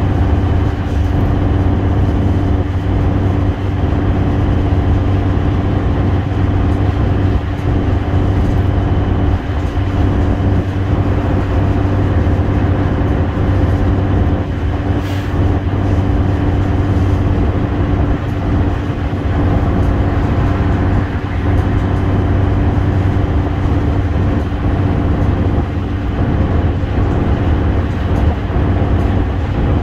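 Mercedes-Benz Citaro bus's OM906hLA six-cylinder diesel engine running at a steady pitch while the bus drives along, heard from inside the passenger saloon.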